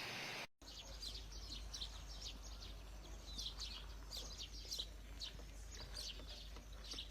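Parrots chirping: many short, high, falling chirps, several a second, over a steady low hum. A brief hiss at the start cuts off about half a second in.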